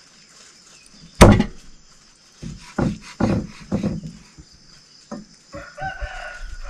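A large knife chopping raw meat on a thick wooden chopping block: a loud chop about a second in, then a run of about seven lighter chops. Near the end a chicken calls for about a second.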